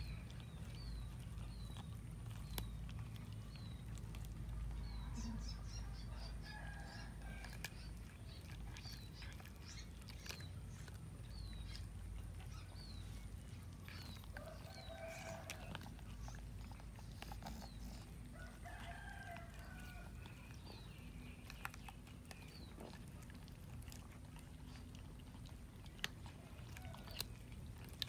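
Cats chewing and tearing at a raw chicken carcass, with scattered crunching clicks, over a low rumble. In the background a rooster crows and chickens cluck a few times, and a short high falling chirp repeats about once a second for the first half.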